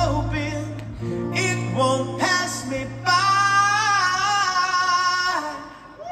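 Live rock band with a male lead vocal over acoustic guitars and electric bass. About three seconds in, the singer holds one long note, then the music fades away near the end.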